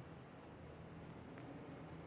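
Quiet room tone: a faint low steady hum with a few faint ticks, about three over two seconds.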